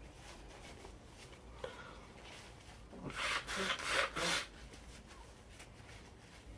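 A man's nose: a quick run of four noisy, rasping breaths through it, sniffing after a sneezing fit, about three seconds in.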